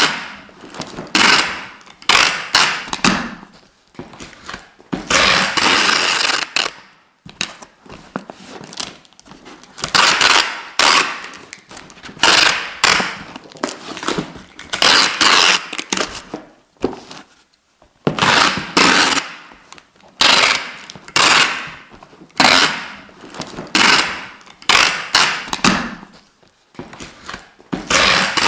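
Adhesive tape being pulled off the roll again and again with a crackling rip. Some pulls are short and sharp, others drawn out for a second or more, with brief pauses between them.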